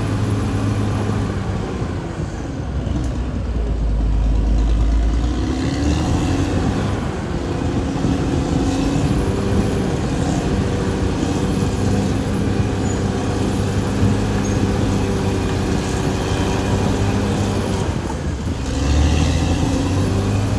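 Caterpillar D6R XL bulldozer's diesel engine running under work. Its note drops into a deep rumble about two to five seconds in, then climbs again. A brief low surge comes near the end.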